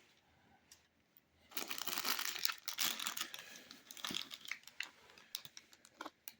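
Plastic bag crinkling and rustling as it is handled, starting about a second and a half in and continuing for about three seconds, followed by a few separate sharp crackles near the end.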